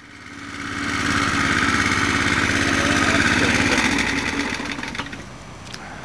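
Small engine running at a steady, rapid beat, swelling in over about a second and fading out about five seconds in, followed by a couple of light clicks.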